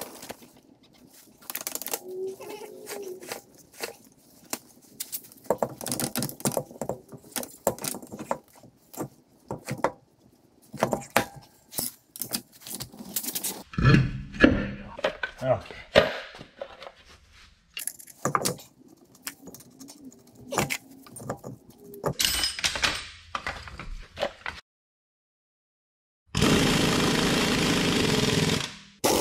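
Metal clanks, knocks and clicks as a heavy dual rear wheel on a wheel dolly is worked onto its hub and its lug nuts are started by hand. Near the end a handheld power tool runs steadily for a couple of seconds at the lug nuts.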